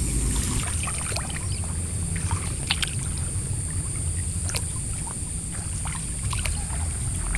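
Feet wading through shallow floodwater in grass, with scattered small splashes and sloshes, over a steady low rumble and a thin, constant high whine.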